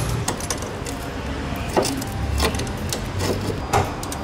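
Scattered sharp metal clicks and clinks of a ratchet and socket being worked on a stubborn exhaust bolt under a car, over a low steady hum.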